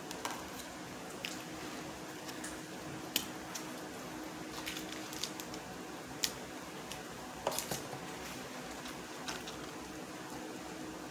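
Scattered small clicks and crinkles from handling paper food packaging and tearing open and squeezing a condiment packet, over a steady low hum.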